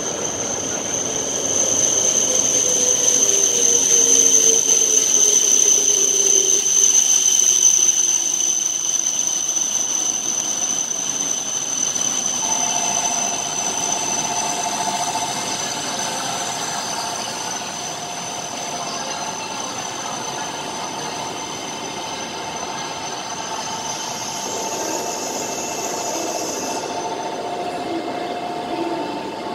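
E7 series Shinkansen train pulling into the platform and braking: a whine falls steadily in pitch for the first ten seconds or so as it slows, loudest as the cars pass. From about twelve seconds in, two steady tones hold while the train creeps to a stop.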